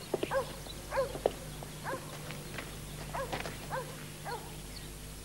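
Short animal calls, each rising then falling in pitch, repeating about every half second to a second, with a few light clicks over a steady low hum.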